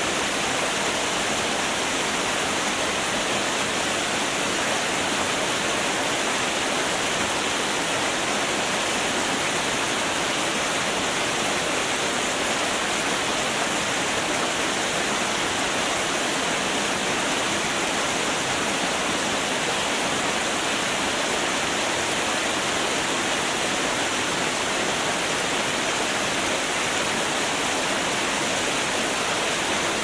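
Nikai Falls, a 20 m two-tier waterfall, falling with a steady, unbroken rush of water.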